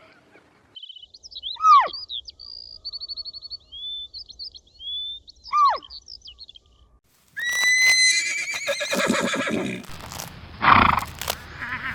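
A horse whinnies about seven seconds in, a high call that falls away in a shaky tremble. Before it come high chirps and whistles, and rough low sounds follow near the end.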